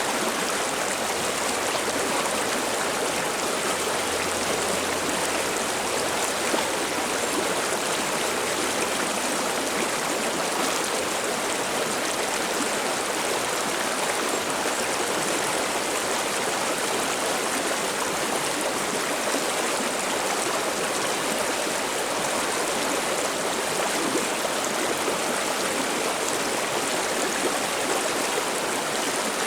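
Mountain stream babbling over rocks, a steady rushing of water.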